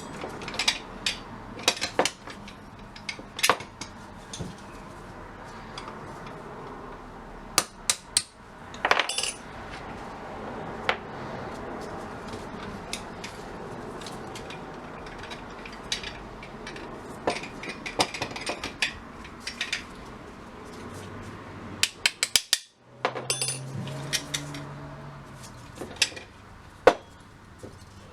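Small metal parts of a vintage gumball machine's mechanism being tapped with a hammer and handled: irregular sharp metallic knocks and clinks with pauses between them, while trying to drive out a stuck pin.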